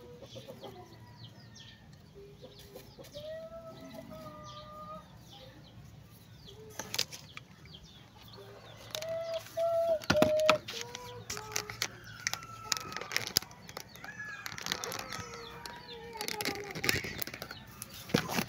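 Chickens clucking, short level-pitched calls scattered throughout, with rustling and knocking from handling close to the microphone, loudest about ten seconds in.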